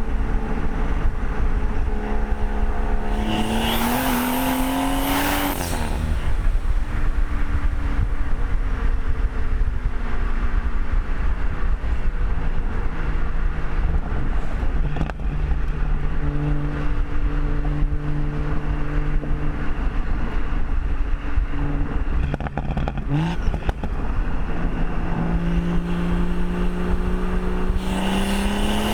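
Modified BMW M140i's B58 3.0-litre turbocharged inline-six, with a front-mount intake, sports cat and resonator delete, under way in casual driving with small pulls. The revs climb with a rising hiss up to about five seconds in, then drop back. The engine runs steadier at lower revs, rises briefly just past the middle, and climbs again in the last few seconds.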